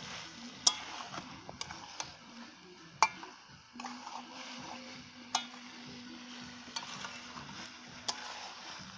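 Chicken being stir-fried in its own oil in a metal kadai over a gas flame, sizzling as a metal spatula turns it, with a few sharp clinks of the spatula against the pan. The meat is being cooked down (kosha) with no water added, so it fries rather than simmers.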